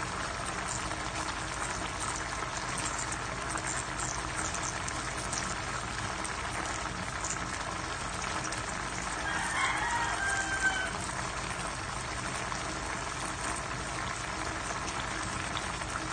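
A pot of tinapa broth simmering, with a steady bubbling hiss and small pops, while a chicken calls once about ten seconds in.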